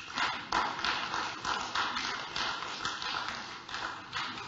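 Footsteps walking at an even pace, about two steps a second.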